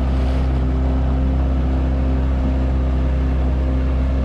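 Outboard motor running at a steady speed, pushing a small aluminum boat, with a steady low drone and water rushing along the hull.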